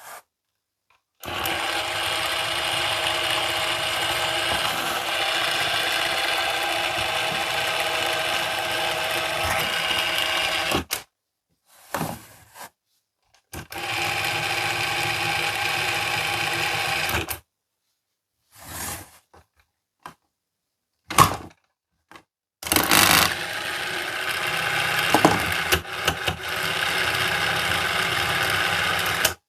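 A small battery-powered toy motor running in three long, steady spells, the longest about ten seconds, each stopping abruptly. Short clicks and knocks come between them, like a switch being worked and the toy handled.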